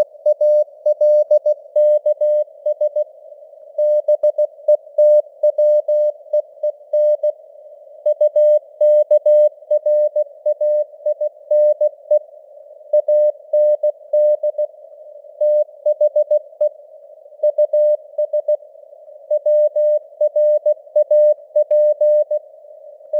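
Morse code sent at 16 words per minute: a single pure mid-pitched tone keyed on and off in dots and dashes, over a narrow band of simulated radio receiver hiss.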